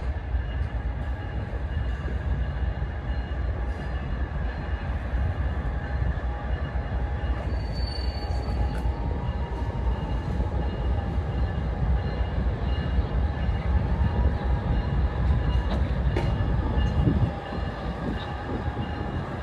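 Train locomotive running at a standstill during an engine change, a steady low rumble that eases slightly near the end.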